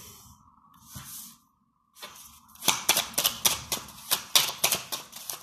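A deck of cards being shuffled by hand: a quick, irregular run of sharp card clicks that starts about halfway through, after a short near-silent pause.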